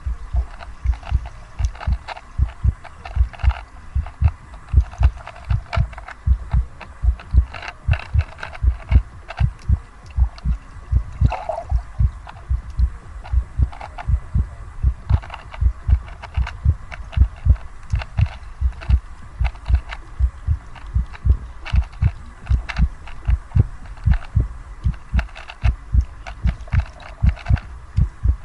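A fast, steady heartbeat sound effect: deep paired thumps, about two to three a second, with faint clicking and rattling above it.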